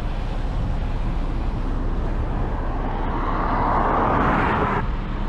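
Outdoor road noise: a steady low rumble of wind and traffic, with a hiss that swells for about two seconds and cuts off suddenly near the end.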